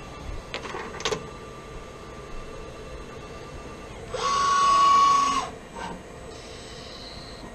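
Two short metallic clicks as the threading tool is loaded into the lathe's toolpost. About four seconds in, the Hardinge HLV toolroom lathe's motor gives a loud high whine that rises quickly, holds for just over a second, then drops away as it spins up and stops.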